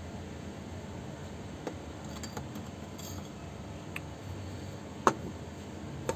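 Light clicks and clinks from handling a plastic LED bulb body with a metal bayonet cap on a tabletop, the loudest a sharp knock about five seconds in, over a steady background hiss.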